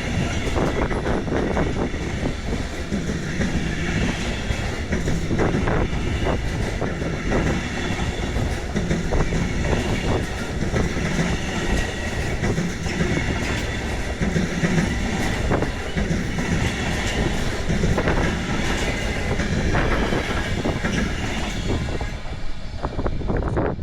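Car-shuttle train's wagons rolling past, wheels clattering over rail joints in an irregular run of knocks over a steady rumble, with faint high wheel-squeal tones.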